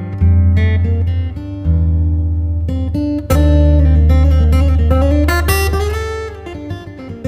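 Background music: an acoustic guitar-led song with strummed chords and a strong bass line.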